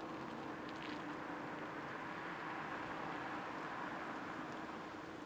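Airbus A330 jet engines running at low power as the airliner rolls slowly down the runway after landing: a steady rushing noise with a steady hum underneath, swelling a little in the middle and easing near the end.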